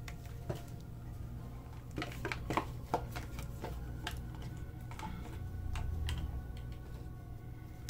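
Oracle cards being shuffled and drawn by hand: a scatter of quick clicks and taps, busiest about two to three seconds in, over a low steady hum.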